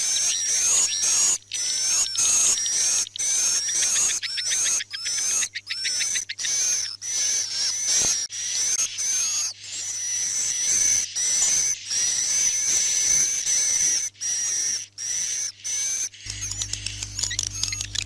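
Recorded twittering of edible-nest swiftlets, a swiftlet-house "night lullaby" lure track: dense, high-pitched chirps and trills, cut by many brief gaps. A steady low hum comes in near the end.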